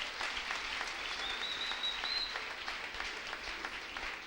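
Congregation applauding: a dense, even patter of many hands clapping, with a thin high tone, like a whistle, rising above it for about a second near the start.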